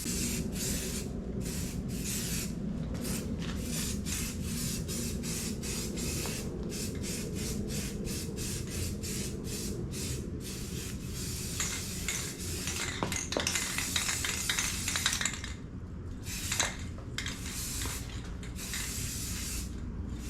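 Aerosol rattle can of primer sealer spraying in many short hissing bursts with brief breaks between them. There is a longer unbroken spray about halfway through.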